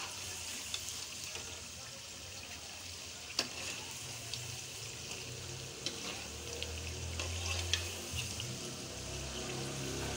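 Batter-coated potato wedges deep-frying in hot oil: a steady sizzle, with a few sharp clicks of a metal slotted spoon against the wok as the wedges are turned.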